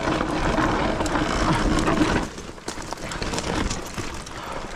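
Mountain bike moving over a loose, stony trail: crunching and rattling, louder for about the first two seconds, then quieter with scattered clicks.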